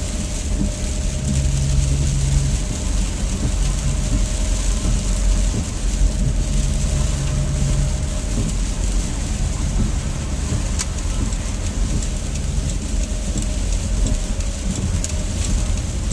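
Steady road noise heard inside a moving car's cabin: a continuous low rumble of engine and tyres with a high hiss over it, and a few light clicks.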